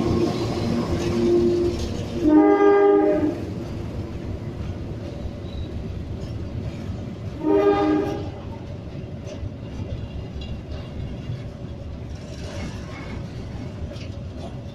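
Train horn sounding twice: a blast of about a second, then a shorter one about five seconds later, over the steady rumble of the train running.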